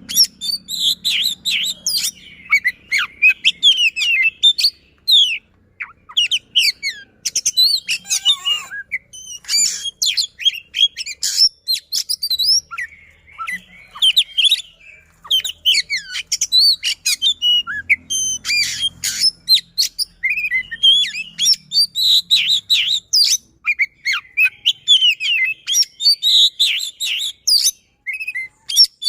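Oriental magpie-robin (kacer) in full, persistent song: a fast, dense run of whistled notes, trills and sharp rising and falling phrases, broken only by brief pauses.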